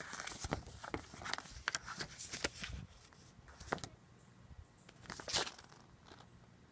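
Paper rustling and crinkling as a folded instruction booklet is handled and opened out: a quick run of crackles in the first three seconds, then fewer, with a louder rustle about five seconds in.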